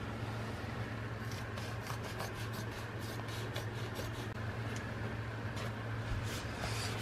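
Scissors cutting through quilted padding fabric, a run of irregular crisp snips with the fabric rustling, over a steady low hum.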